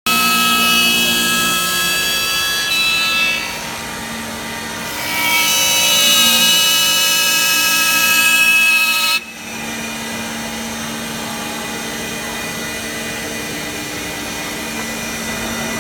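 CNC wood lathe cutting a wooden leg: a steady machine whine with louder, hissy cutting noise for the first three seconds and again from about five to nine seconds. The cutting noise stops suddenly about nine seconds in, leaving a steady hum.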